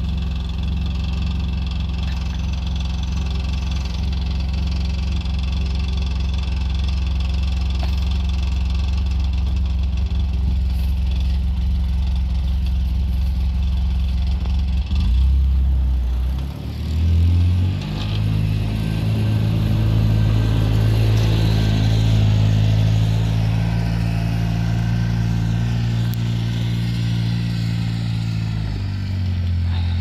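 Side-by-side UTV engine idling steadily. About halfway through it revs up and holds a higher, steady note under load, then settles back down near the end.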